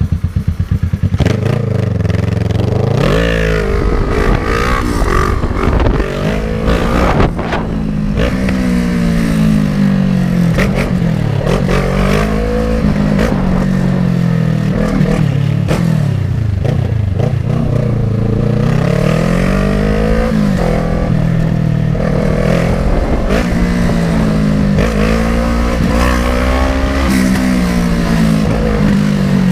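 Kawasaki ER-6n's 650 cc parallel-twin engine under hard riding, its pitch rising and falling again and again as it accelerates, shifts and backs off. It is kept at high revs, with the engine constantly calling for the next gear.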